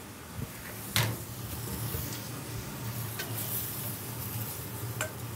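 Food sizzling on a hot steel griddle, with a sharp metallic clank about a second in and lighter clicks and scrapes of a metal spatula against the griddle and a stainless steel bowl as cherry tomatoes are taken off the heat. A steady low hum runs underneath.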